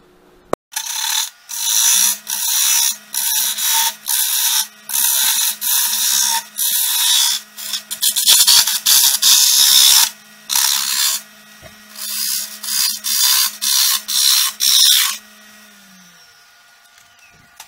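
A point tool scraping into a wood-and-resin blank spinning on a Grizzly wood lathe, cutting out its centre: a loud hissing scrape in many short strokes with brief pauses between, over the lathe's faint steady hum. Near the end the cutting stops and the hum drops in pitch as the lathe winds down.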